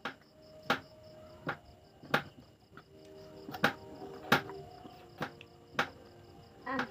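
A series of sharp clicks at uneven intervals, about ten in all, over the faint, steady, pulsing chirp of crickets.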